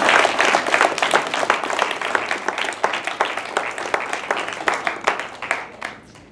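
Audience applauding, the clapping thinning out and fading away toward the end.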